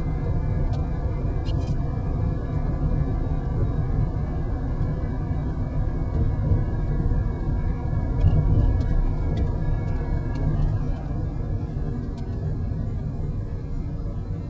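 Car engine and road noise heard from inside the cabin while driving: a steady low rumble, with a few faint clicks.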